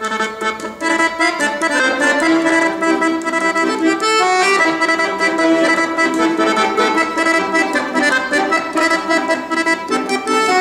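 Piano accordion played solo: a tune of held chords under a moving melody line.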